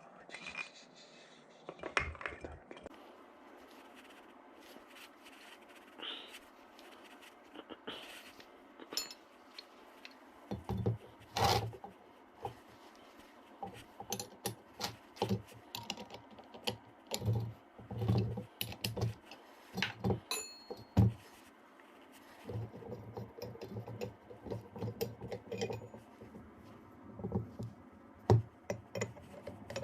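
Small metal parts being handled on a workbench: irregular clicks, knocks and scrapes, sparse at first and then busier, with a few duller thuds.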